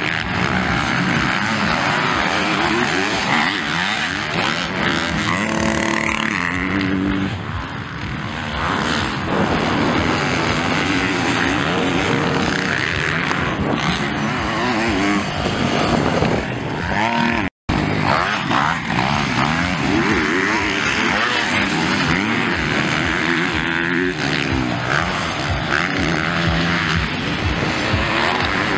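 Motocross bike engines racing, revving up and down in overlapping rises and falls as the bikes take jumps and corners. The sound cuts out for an instant about two-thirds through.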